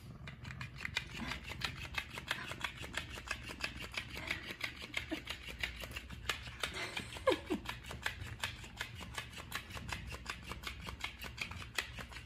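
Cats batting and biting a fabric toy fish on a hardwood floor: fast, steady taps and rustling, about six or seven a second, with a short falling squeak about seven seconds in.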